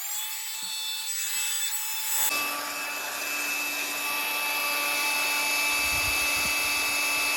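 Small battery-powered vacuum cleaner motor spinning up with a rising whine, then running with a steady airy hiss. About two seconds in it steps up to a fuller, steady hum.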